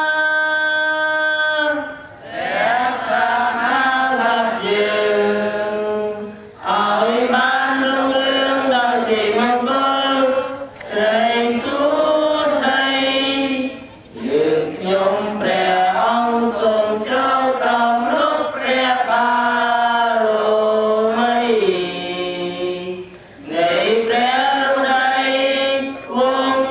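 Voices chanting in long, held phrases, with short pauses between phrases.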